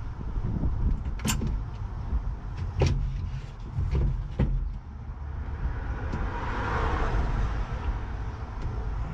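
Hand tools knocking and clinking against the van floor while the tank stand's lag bolts are worked on: four sharp knocks over a low rumble, then a couple of seconds of shuffling noise near the end.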